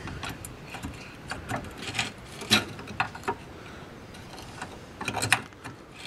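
Screwdriver prying at a rusted rear brake caliper, steel clicking and scraping against the caliper and its bracket in irregular knocks, the loudest about halfway through and a quick cluster near the end.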